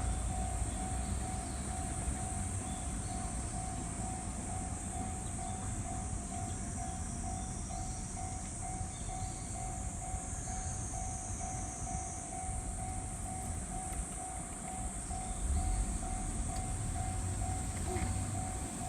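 Japanese railway level-crossing warning bell ringing its steady, rapid 'kan-kan' ding, about two to three strikes a second, over the low rumble of a passing train.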